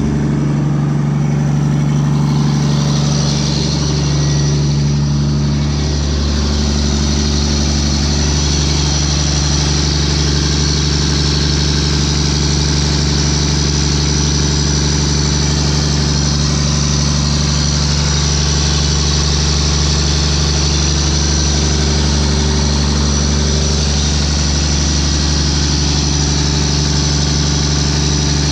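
35-year-old Kobelco 909 excavator's diesel engine idling steadily.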